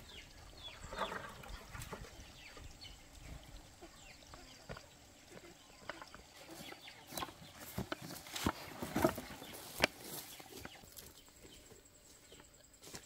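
Cut wooden poles knocking and clattering against each other as they are gathered up into an armful, in a run of short, sharp knocks that are loudest a few seconds before the end. Chickens cluck faintly in the background.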